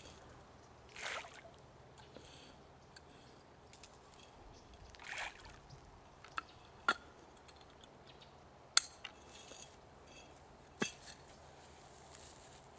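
Faint water splashes and short sharp plops on a pond's surface, spread a few seconds apart: fish rising to take fish food thrown onto the water.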